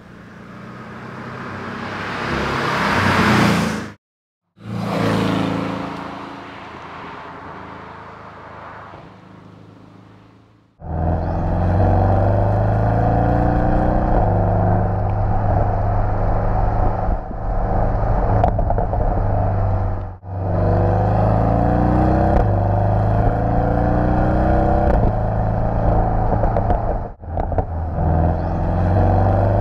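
Porsche 718 Boxster GTS's turbocharged flat-four engine. The car passes by, swelling to a peak and then fading away. From about eleven seconds in the engine is heard up close, accelerating, its pitch climbing again and again through the gears.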